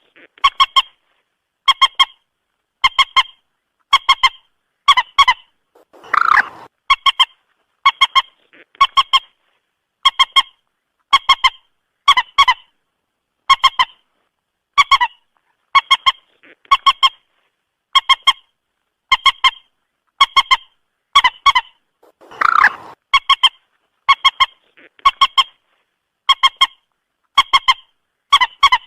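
Moorhen calls played as a repeating recording: short, clipped, honking notes in groups of two or three, about once a second. Twice a longer, harsher call breaks in.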